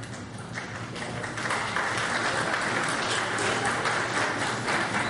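Audience applauding, swelling about a second and a half in.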